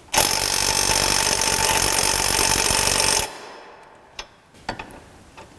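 Electric impact wrench hammering on a 17 mm lower ball-joint castle nut for about three seconds, then stopping, followed by a few light clicks. The nut does not break free: the electric impact lacks the torque, and air tools are needed.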